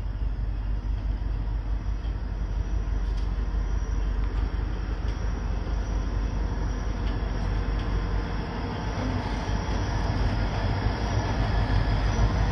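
Approaching diesel train rumbling, growing louder toward the end.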